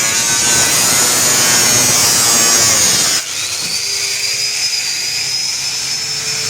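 Power tool cutting through the rusted sheet steel of a car's roof pillar, a loud, dense noise. About three seconds in it cuts off abruptly, and a tool motor whines up in pitch and runs on steadily.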